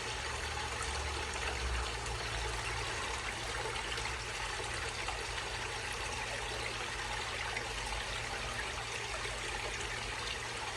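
Water running steadily down a small garden stream and waterfall and splashing into a pond.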